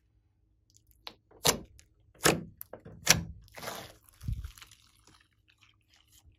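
Thick fluffy slime mixed with clay and foam being squeezed and pulled by hand, giving a run of sticky pops and crackles, the loudest about a second and a half in and near two and three seconds, with a duller squelch a little after four seconds.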